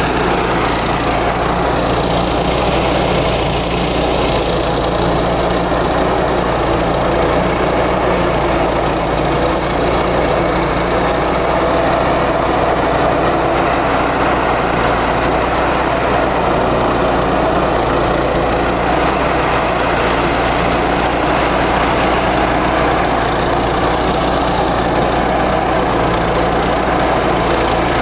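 Engine-driven rice thresher running steadily, its engine and threshing drum working through tough, half-dry straw that makes the machine feel heavy.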